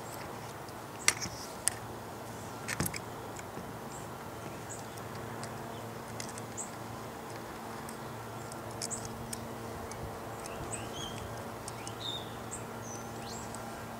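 A few sharp clicks from the metal parts of a paintball marker being handled and fitted together, the loudest about a second in and again near three seconds. Faint short bird chirps follow later, over a steady low hum.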